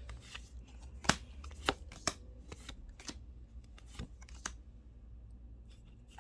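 Magic: The Gathering cards being handled and flipped through by hand: a run of irregular sharp card flicks and slaps, the loudest about a second in.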